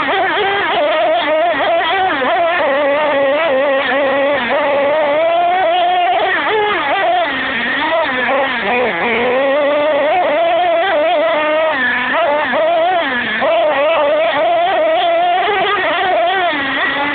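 HPI Savage XL RC monster truck's 5.9 nitro engine revving up and down continuously as the truck drives, heard from on board; its pitch wavers constantly with the throttle and eases off briefly about halfway through.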